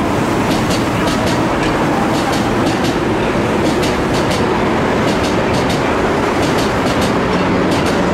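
Osaka Metro Midosuji Line train running past, a steady loud rumble with its wheels clicking over rail joints about three times a second.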